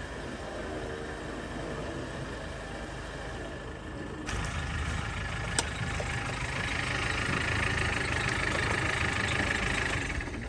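A vehicle engine running. About four seconds in the sound gets suddenly louder, with a single sharp click soon after and a steady hiss building up through the second half.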